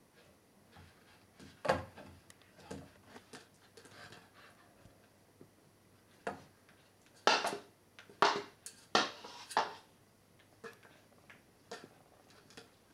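Hollow plastic toy bowling pin, carried in a puppy's mouth, knocking and clattering against the door and floor in irregular bursts, the loudest cluster about seven to ten seconds in.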